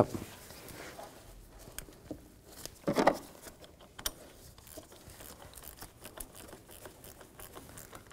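Gloved hands lining up a negative battery cable terminal on a car battery: faint scattered clicks and rubbing of the cable and nitrile gloves, with one louder brief rub about three seconds in.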